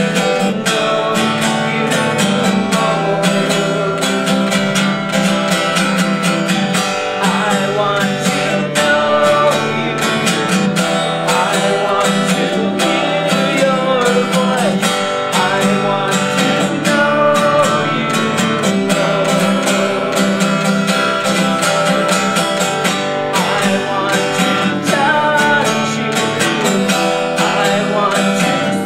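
Song accompaniment with strummed acoustic guitar, playing steadily.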